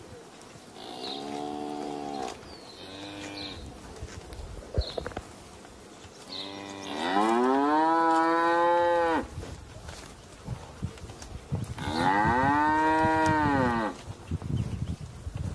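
Calves mooing: two short calls, then two long, loud moos a few seconds apart, the first rising in pitch as it starts.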